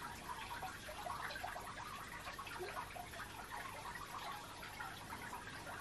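A faint, irregular patter of small ticks, like dripping water.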